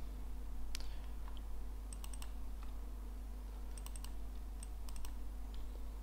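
Faint clicks of a computer mouse and keyboard. There is a single click about a second in, quick clusters of clicks around two and four seconds in, and a few more near the end, all over a steady low hum.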